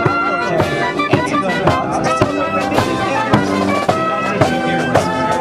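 Marine Corps marching band playing a march: brass and sousaphones holding pitched notes over a steady drum beat of about two strokes a second.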